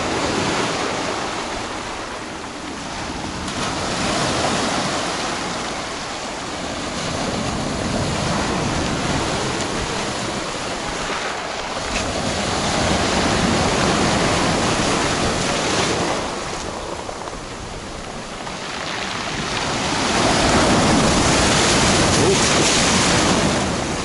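Storm surf: heavy waves breaking and washing up the shore in a continuous roar that swells and eases in slow surges every several seconds, loudest near the end as a big wave rushes in over the shore.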